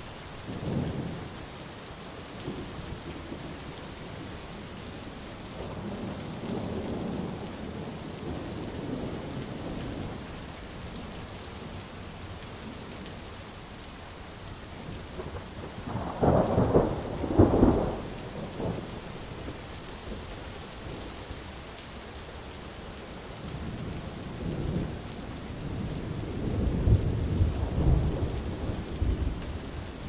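Thunderstorm: steady rain hissing throughout, with thunder rolling over it. There is a short rumble about a second in, a softer rolling rumble a few seconds later, two loud peals of thunder just past the middle, and long rolling thunder building near the end.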